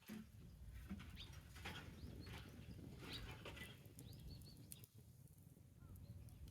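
Small birds chirping faintly, with a few short crackles over a low rumble.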